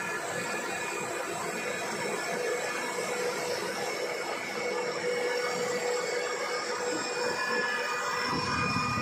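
10 HP electric rotary screw air compressor running steadily: an even mechanical rush with several steady whining tones over it. A deeper rumble grows stronger near the end.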